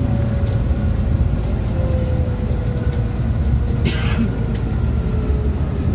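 Scania N94UB bus's five-cylinder diesel engine heard from a seat inside the saloon, running with a steady low rumble and a faint whine that slowly falls in pitch. A short hiss about four seconds in.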